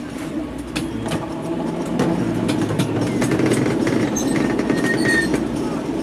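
Miniature railway train running along its track, heard from aboard the carriage: a steady rumble of the wheels on the rails with irregular clicks over the rail joints, growing louder about two seconds in.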